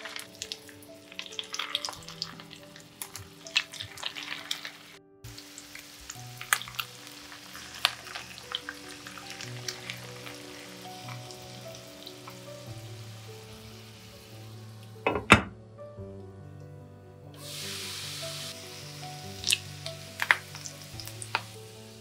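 Zucchini and potato patties sizzling in hot olive oil in a frying pan, with scattered pops and crackles. There is a sharp knock about fifteen seconds in, and a louder stretch of sizzling a few seconds later.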